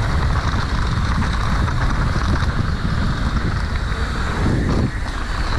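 Wind buffeting the camera microphone over the rumble and rattle of a mountain bike rolling fast down a rough, rocky dirt trail.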